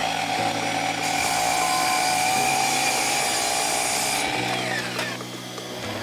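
Sliding miter saw running at full speed, its blade cutting through a wooden board from about a second in. Near four seconds the cut ends and the motor winds down, then it starts up again at the very end.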